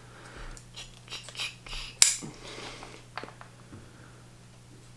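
Small plastic packaging being handled and picked at: light clicks and rustles, with one sharp snap about two seconds in and a smaller click about a second later.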